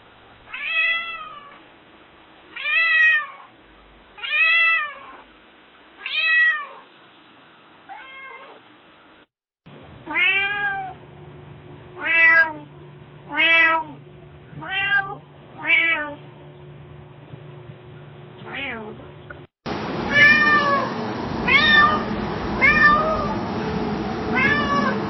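A domestic cat meowing over and over, one call every one and a half to two seconds, each meow rising then falling in pitch. It comes as three separate recordings with a brief cut to silence between them: the second has a steady low hum beneath the meows, and the third a louder, noisier background.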